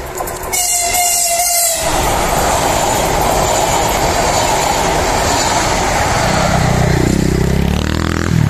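ES2G Lastochka (Siemens Desiro RUS) electric multiple unit sounds one short horn blast on approach, then passes close at speed with a loud, steady rush of wheels on rail and air.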